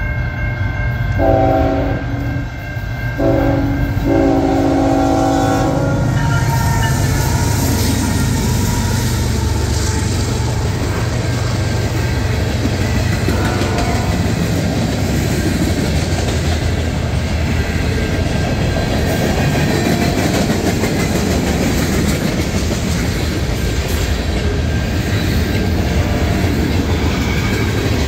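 Freight train at a grade crossing: the locomotive's air horn sounds twice, the second blast longer and ending about six seconds in, over the ringing of the crossing bells and the rumble of the engines. Then the freight cars pass close by with a steady rumble and clatter of wheels on the rails.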